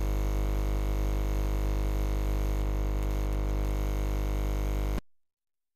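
Steady electrical hum, a low buzz with many overtones, which cuts off abruptly to silence about five seconds in.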